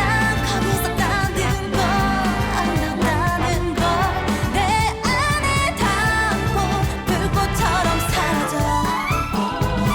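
K-pop song playing: a singer's melody over steady bass and drums, with a rising sweep near the end.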